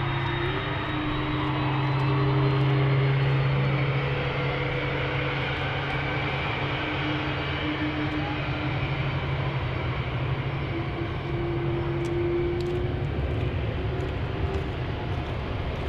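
Airbus A300-600ST Beluga's two General Electric CF6 turbofan engines running at low taxi power as the jet rolls past. The sound is a steady engine hum with a faint high whine.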